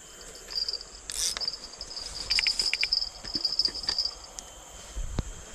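Insects calling with a high, pulsing buzz that keeps stopping and starting. A few clicks and a low knock come from a fishing rod being handled and set in its holder.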